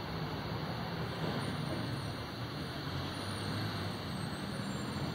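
Steady street ambience: a low rumble of road traffic under an even hiss of rain on wet pavement.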